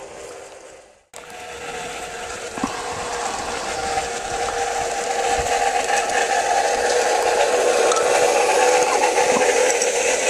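Garden-railway model Burlington Zephyr train running by, its rear motor removed: the remaining electric motor and gearing give a steady whirring whine that grows louder as the train comes close. The sound cuts out briefly about a second in.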